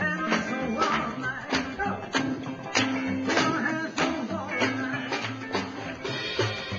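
Rock and roll music with a steady beat, an upright double bass among the instruments.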